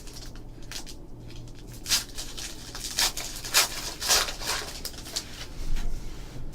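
Trading card packs and cards being handled: intermittent rustling with several sharper crinkles.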